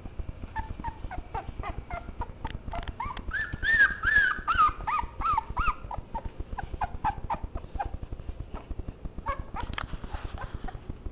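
Boxer puppies whimpering and squealing in many short, high calls, louder in a run of squeals about four seconds in and again briefly near the end, amid many faint clicks.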